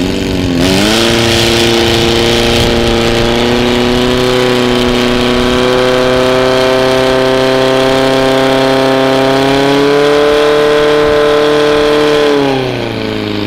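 Portable fire pump's engine revved to full throttle about half a second in and held at high speed while it drives water through the hose lines to the nozzles, rising slightly twice, then winding down near the end.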